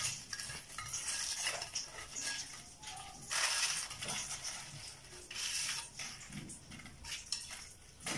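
Paper towel rustling in bursts, with light taps and crunches as crisp breaded fried chicken pieces are picked up and set down on a serving plate.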